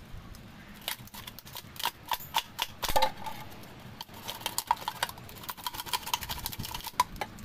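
Clear adhesive tape being pulled off its roll and wrapped around a plastic jar: a run of crackling clicks with a sharp crack about three seconds in, then a thin steady squeal under the crackle as the tape peels off.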